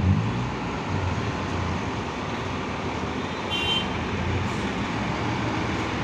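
Diesel intercity bus engine running as the bus pulls away and passes close by, over steady heavy traffic noise. A brief high-pitched beep sounds about three and a half seconds in.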